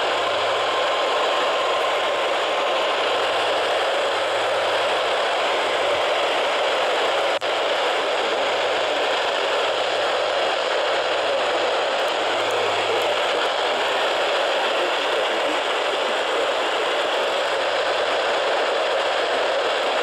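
Midland weather radio's speaker giving out a steady hiss of static while tuned to a weak NOAA Weather Radio channel, with no clear voice coming through.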